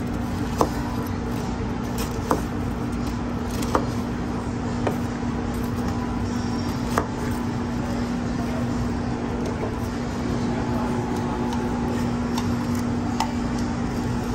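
Chef's knife chopping crispy fried chicken on a cutting board: sharp single knocks a second or two apart, fewer after the middle, over a steady background hum.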